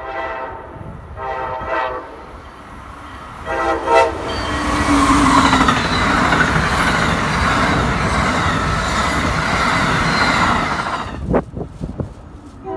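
Electric passenger train sounding its multi-tone horn in three blasts: one ending about half a second in, a second shortly after, and a third at about four seconds. It then passes close at speed with a loud, steady rush of wheels and air that cuts off abruptly as the last car goes by, leaving a few sharp wheel-on-rail clicks.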